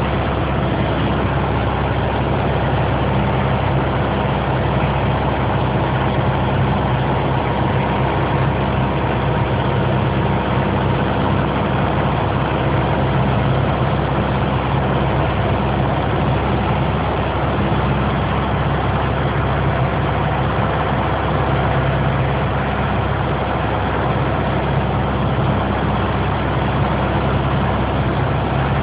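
Piper PA-28 light aircraft's piston engine and propeller running steadily in flight, a constant unchanging drone.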